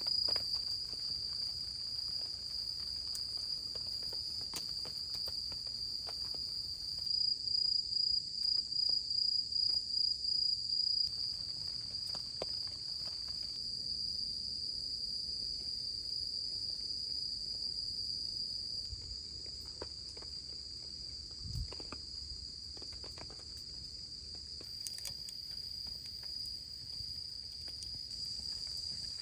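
Steady high-pitched chirring of crickets or other insects, with a faint patter and scattered light clicks beneath it.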